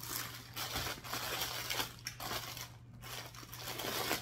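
Clear plastic packaging bag crinkling and rustling irregularly as it is handled.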